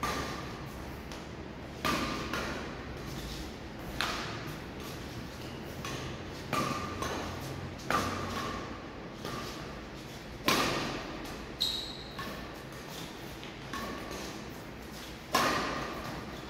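Badminton rackets striking a shuttlecock in a feeding drill: about eight sharp hits spaced one to three seconds apart, each echoing in a large hall, the loudest about ten and fifteen seconds in.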